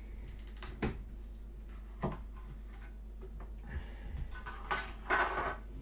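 Light clicks and knocks of small electronic components being handled on a workbench, with a short rustle about five seconds in, over a steady low hum.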